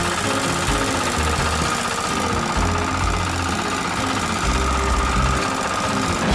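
Diesel engine of a 9 hp walk-behind tractor running steadily, left running during a roadside repair.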